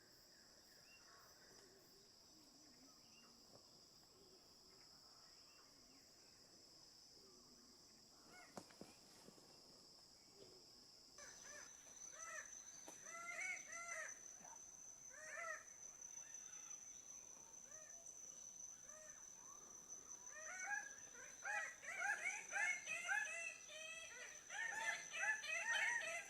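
A steady high insect buzz in forest, then, from about eleven seconds in, a chorus of loud, repeated arching bird calls that grows denser and louder toward the end over a steady high insect whine.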